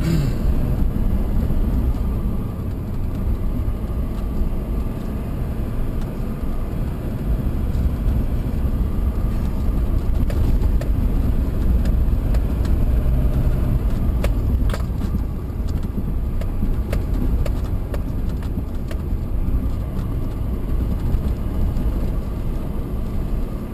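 Vehicle driving up a gravel road, heard from inside the cab: a steady low rumble of engine and tyres on gravel, with a few sharp clicks and knocks along the way.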